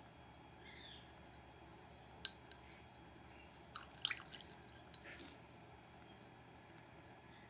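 Sun conure dipping its beak into a glass of tea to get at the lemon slice: a few faint drips, small splashes and clicks of beak on glass, bunched around two and four seconds in.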